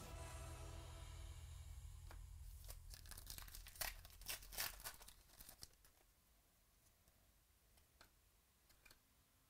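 Trading-card pack wrapper being torn open by hand, a short run of loud crinkling and crackling about four seconds in. After it, only a few faint clicks as the cards are handled.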